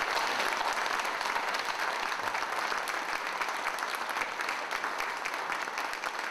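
Audience applauding steadily, a dense run of many hands clapping that eases off slightly near the end.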